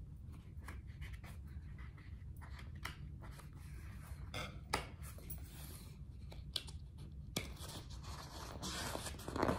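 Picture-book pages being handled and turned: faint paper rustling and scattered light clicks over a low steady hum, the rustling thickest near the end.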